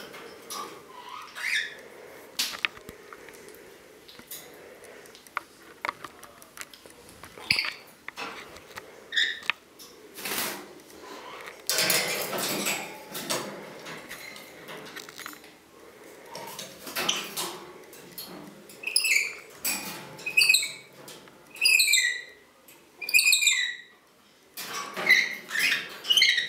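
Green-naped lorikeet at its wire cage and plastic toy: scattered clicks and a longer rattle around the middle from beak and toy against the wire. In the second half the bird gives a run of short, high chirps that slide downward.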